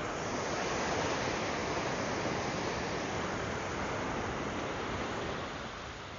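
Surf: a wave breaking and washing up the beach, a rushing hiss that swells in the first second and then slowly dies away.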